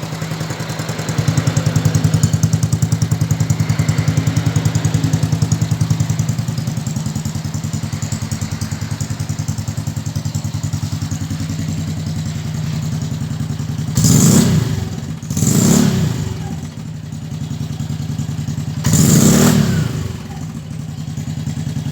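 Motorcycle engine idling through an aftermarket Trovão exhaust fitted with a butterfly valve, a steady pulsing exhaust note. Near the end the throttle is blipped three times in short revs, two close together and one a few seconds later.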